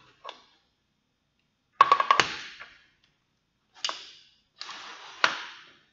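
Sharp clicks and clatter of banana-plug test leads being handled and plugged into the terminals of a lamp holder: a quick cluster of clicks about two seconds in, a single click about four seconds in, and a scuffle ending in a click a little after five seconds.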